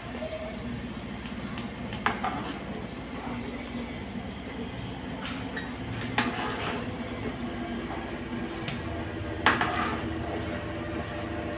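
Patties frying in hot oil with a steady sizzle, while a metal fork lifts them out and clinks sharply against the pan three times, the last strike the loudest.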